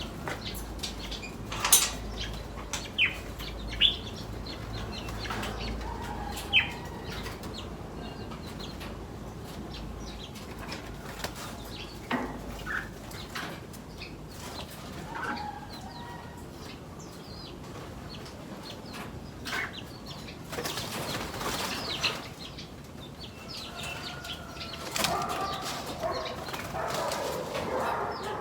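Aviary birds flapping their wings and moving about, with scattered sharp clicks and a few short calls; a longer flurry of wing flaps comes about 21 seconds in, and a run of calls near the end.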